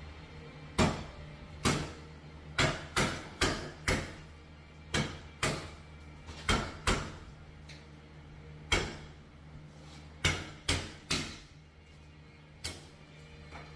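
Hammer blows, about fifteen sharp strikes in uneven groups of one to three, working loose a nail that pinned a pipe inside the wall.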